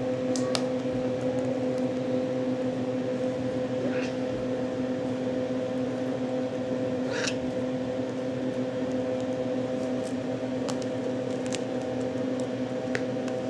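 Steady mechanical hum with a few faint rustles and light taps scattered through it.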